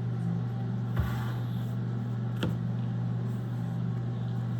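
Steady low hum with a few even tones, and two short, sharp knocks, about a second in and a little before the middle.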